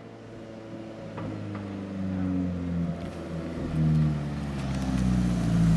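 Alfa Romeo car engine running at low revs, growing steadily louder as the car approaches, its note rising and falling a little with the throttle.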